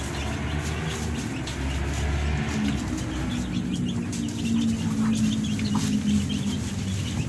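Chickens clucking and giving short high chirps, over a steady low rumble.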